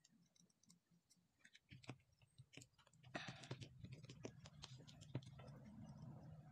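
Faint, scattered clicks and small ticks of hands handling twisted wire ends and a soldering iron on a tabletop, with a faint low hum and a brief hiss coming in about three seconds in.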